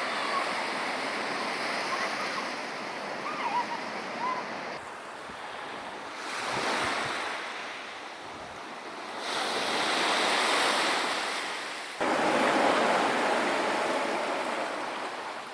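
Ocean surf washing against a rocky shoreline, the rush of water swelling and ebbing with each wave, with some wind on the microphone.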